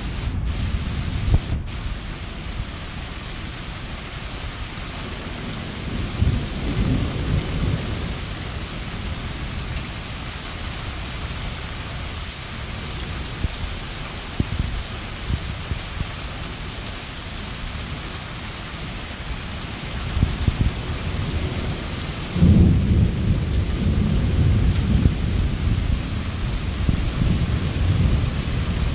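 Steady rain hiss with rolling thunder: one rumble about six to eight seconds in, and a longer, louder rumble starting about twenty-two seconds in and running on.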